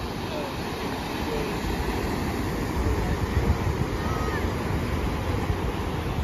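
Surf breaking and washing up a sandy beach, with wind gusting on the microphone, the wind rumble heavier in the second half.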